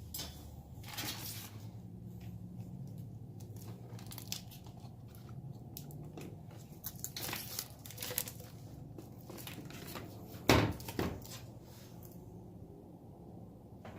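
Crinkling and rustling of something being handled, with many scattered small clicks and a louder knock about ten and a half seconds in.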